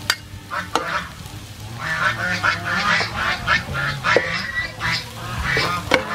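Chopped garlic sizzling in hot oil while a metal spatula stirs it and knocks against the pan. From about two seconds in, domestic fowl call repeatedly in the background, loud enough to dominate.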